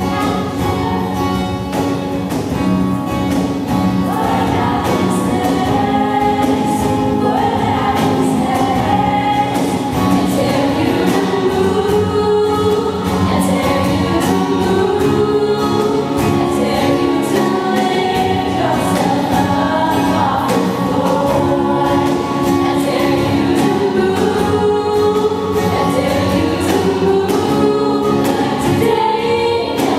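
Female vocal group singing in harmony, with acoustic guitar accompaniment under the voices.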